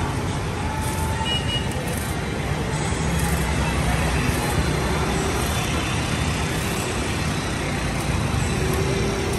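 Steady rumble of street traffic, with faint, brief scrapes here and there as a hand blade strips the rind from a stalk of sugar cane.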